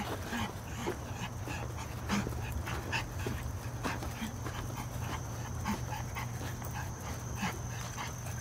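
Pug puppy panting in short, irregular puffs, with small clicks, over a steady low hum.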